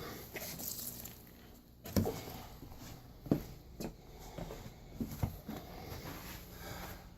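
Rustling and handling noise with a series of irregular knocks and thumps, about six in all, the loudest about three seconds in, as shoe debris is gathered up for the trash.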